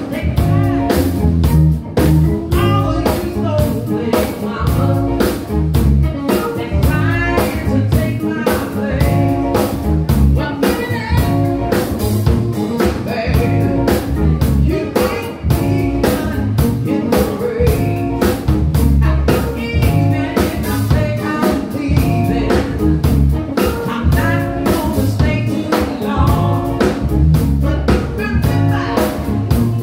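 Live band playing a blues-style song with a steady beat: a woman sings into a microphone over drum kit, guitar and keyboard.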